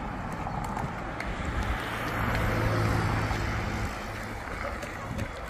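Road traffic: a passing vehicle's engine and tyre noise swells about two seconds in and fades again near four seconds, over a steady background of traffic noise.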